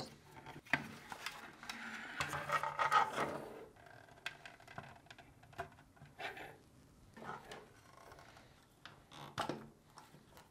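Screwdriver blade scraping and pressing on the plastic retaining tabs of a refrigerator evaporator fan motor bracket. The rubbing is loudest in the first few seconds, followed by scattered light plastic clicks and knocks as the bracket and housing are handled.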